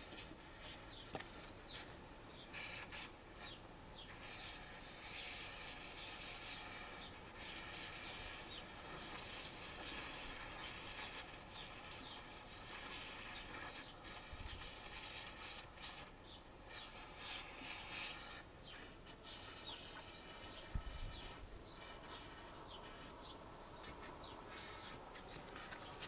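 Gas-oxygen brazing torch hissing faintly, its level swelling and fading, as it heats a copper refrigerator filter-drier to melt solder into the joint.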